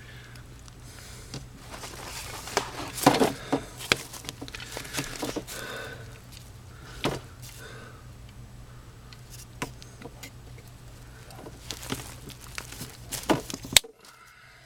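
Rustling, scraping and scattered knocks of someone moving and handling things in a dirt crawl space under a steady low hum; the hum and the rest cut off suddenly near the end.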